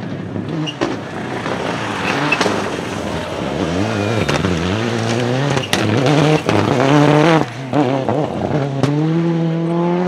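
Toyota Corolla WRC rally car's turbocharged engine revving hard through the gears as it passes. The pitch climbs and drops back at each shift, with sharp cracks between shifts, and climbs steadily again near the end.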